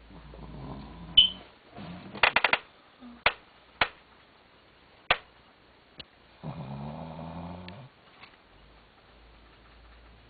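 A dog snoring in its sleep: two long snores about six seconds apart. Between them come sharp clicks, including a quick run of several about two and a half seconds in.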